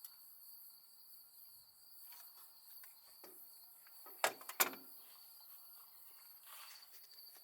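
Crickets trilling steadily in the background, with a few light taps and two sharp clinks close together about four seconds in from parts being handled at the engine.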